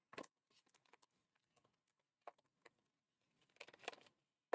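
Faint, sparse crinkles and rustles of a clear cellophane packet and thin paper die-cut pieces being handled, a few single strokes and then a short cluster of them near the end.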